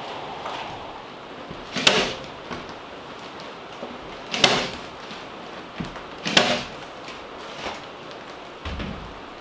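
A staple gun fired three times, about two seconds apart, fastening the facing of fiberglass batt insulation to the roof rafters, with a few lighter clicks between shots. A short low thump comes near the end.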